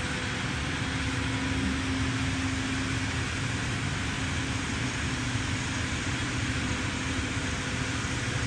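Panel saw cutting machine running steadily: an even machine noise with a low, constant electric-motor hum.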